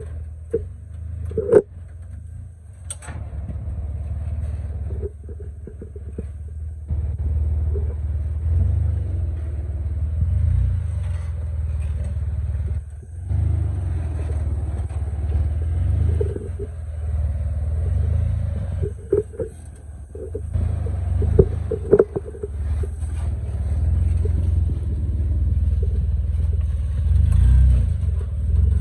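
Jeep Wrangler crawling over boulders at low speed: a deep, steady engine rumble that swells and eases as it climbs. A few sharp knocks stand out, the loudest about a second and a half in.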